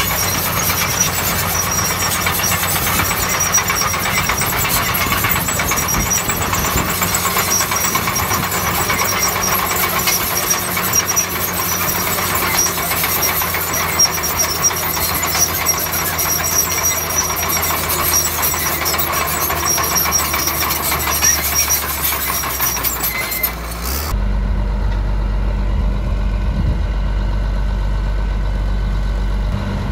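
Shantui bulldozer's diesel engine working under load, with a constant rattle of clanking from the machine and its tracks. After about 24 seconds the sound changes abruptly to a deep, steady low rumble with the clatter gone.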